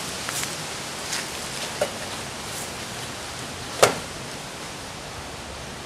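Light clicks and knocks of a plastic bottle being set into a microwave, with one sharp clack about four seconds in, over a steady background hiss.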